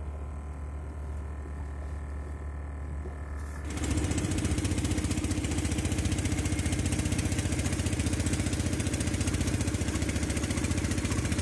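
A steady low hum, then about four seconds in it cuts to a boat's engine running loud and even, with the rush of the hull moving over the water.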